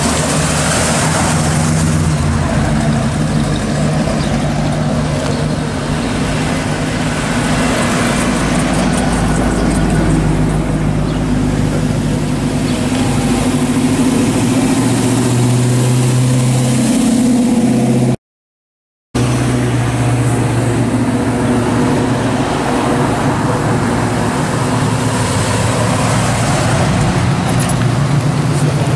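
Classic muscle cars' engines and exhausts rumbling as the cars drive slowly past one after another, with brief swells in low engine tone as they pull by. The sound cuts out for about a second a little past halfway, where two clips are joined.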